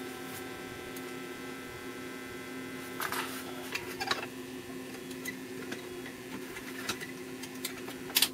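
A steady low electrical hum, with a couple of short rustling hisses about three and four seconds in and a few light clicks near the end as hands handle the wire and soldering iron at the tube socket.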